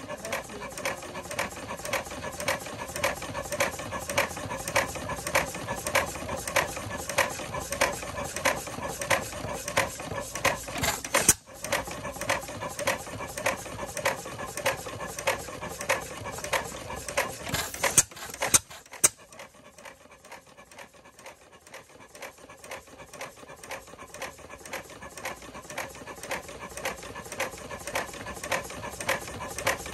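1908 Fairbanks Morse 4 hp Model T single-cylinder stationary engine running on its first run after restoration, with a fast, even mechanical clatter. Sharp cracks come about eleven and eighteen seconds in, after which it runs quieter for a few seconds and then builds back up.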